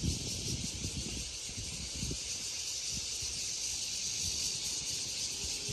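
Wind gusting on the microphone in uneven low rumbles, over a steady high hiss.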